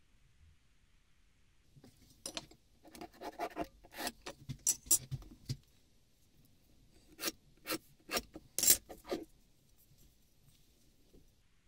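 Short scratching and rubbing strokes of marking out angle lines on a beech block, in two bursts of several strokes each separated by a brief pause.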